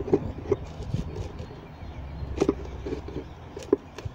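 A low steady rumble with a few short knocks and clicks of handling as a hand presses a white budding box against a log hive; the sharpest knock comes about two and a half seconds in.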